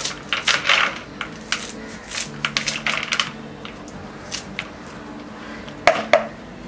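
Kitchen scissors snipping through the stems of a tied bundle of fresh fenugreek: a quick run of short, crunchy snips, then a pause and two louder snips near the end.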